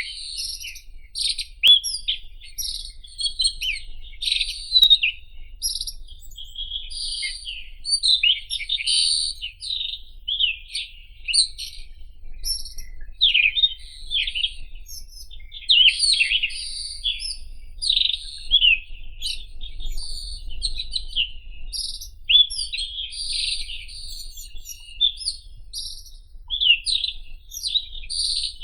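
White-throated robin (Irania gutturalis) singing: a continuous rapid stream of short, varied, high-pitched notes and phrases with only brief pauses.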